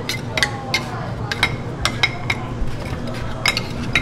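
Metal spade scraping and clacking against a frozen stone slab as ice cream is chopped and folded on it: about ten sharp, irregular strikes, some ringing briefly, over a steady low hum.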